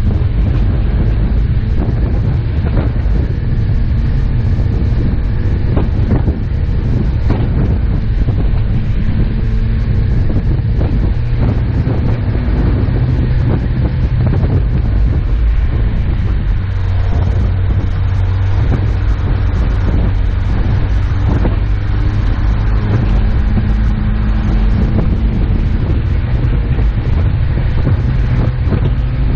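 Off-road 4x4 driving on a snow-covered road: a steady engine and road rumble, with wind on the microphone and occasional short knocks from bumps.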